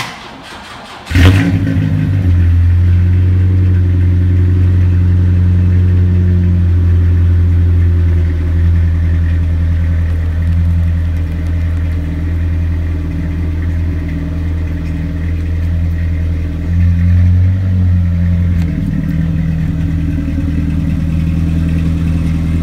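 1995 Chevy S10 pickup's engine starting: a second of starter cranking, then it catches with a loud burst and settles into a steady idle, swelling briefly about three-quarters of the way through.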